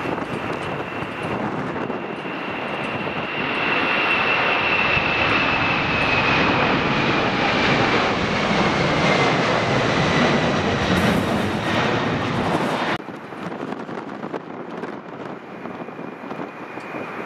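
Boeing 747-400's four jet engines at takeoff power: a loud rushing noise with a high whine that slowly falls in pitch as the airliner climbs away. About 13 seconds in the sound cuts off abruptly, and a quieter jet noise from a second 747 on the runway follows.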